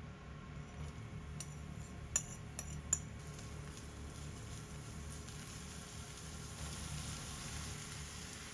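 A few light clinks of kitchen utensils, then from about three seconds in a steady, quiet sizzle of food frying in a pan.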